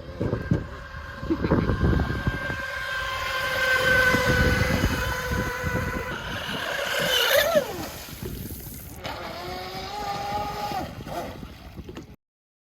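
3D-printed RC race boat's motor whining at speed over a rough rush of water and wind. About seven seconds in, the pitch jumps up and then falls away as it throttles back, and a fainter, lower whine follows until the sound stops near the end.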